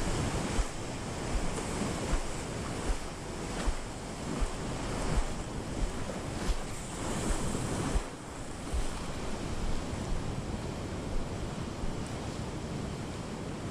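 Ocean surf washing and sloshing around pier pilings, close to the microphone, with wind buffeting the mic in irregular low thumps.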